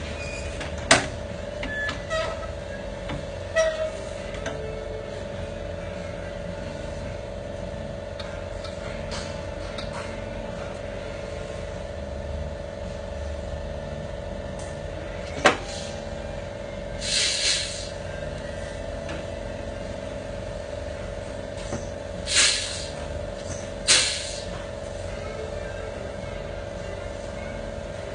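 Steady machine hum with a few sharp knocks and three short bursts of hissing in the second half.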